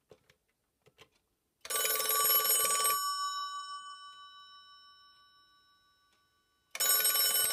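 Bell ringer of a black rotary Western Electric 500 desk telephone ringing on an incoming call. A ring of just over a second that rings on and fades over a couple of seconds, then a second ring starts near the end. It is the classic Western Electric 500/2500 ring, plainly different from the Cortelco 2500's ringer.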